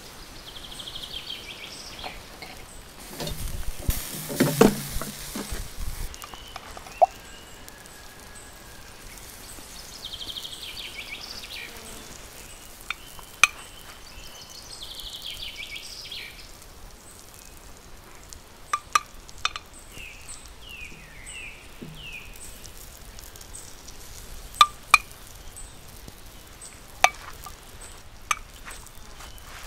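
Whole duck sizzling on a charcoal grill, with sharp scattered pops and crackles of fat on the embers and a louder noisy stretch about four seconds in. Birds chirp in the background.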